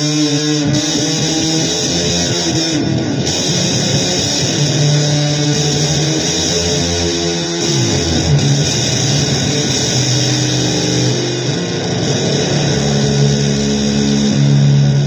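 Loud, noisy guitar music in a blues vein: held low notes under a dense hiss, with a note sliding down in pitch about eight seconds in.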